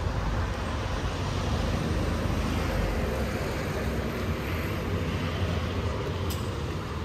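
Low, steady rumble of a vehicle passing along a city street, building through the middle and easing toward the end.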